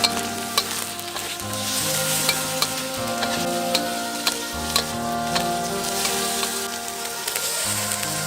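Food frying and sizzling in a pan as it is stirred, with repeated sharp clicks of a utensil against the pan, over soft background music with slow held notes.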